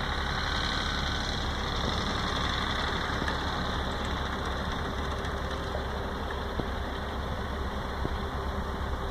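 Deutz F3L 514 tractor's air-cooled three-cylinder diesel engine running steadily.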